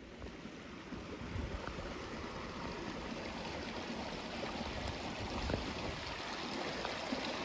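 Small mountain stream rushing and trickling over rocks close by, getting gradually louder over the first couple of seconds.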